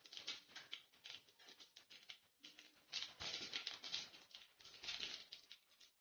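Panch phoron whole spices crackling in hot mustard oil: faint, dense quick pops, louder in spells about three and five seconds in.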